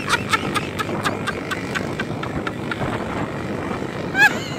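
Yamaha motorcycle engine running on the move, with wind on the microphone. Over it, a quick series of short animal calls fades out over the first couple of seconds, and one loud call comes near the end.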